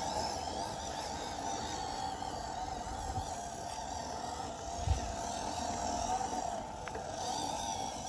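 1:12-scale RC UAZ truck's electric motor and gearbox whining steadily as it drives through sand, with a brief low thump about five seconds in.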